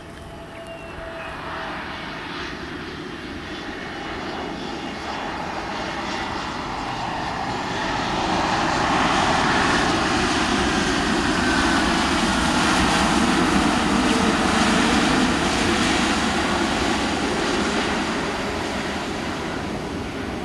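Jet engines of an AirAsia Airbus A320-family airliner on landing, a steady roar that swells as the plane touches down and passes, loudest about halfway through, then eases a little as it rolls out.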